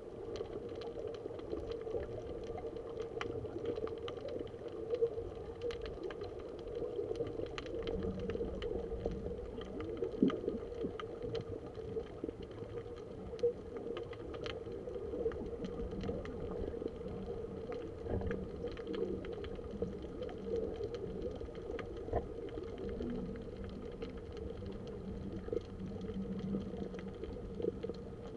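Muffled underwater ambience picked up through a camera's waterproof housing: a steady low rumble and hum with scattered faint clicks and crackles, and a second low steady tone coming in about a third of the way through.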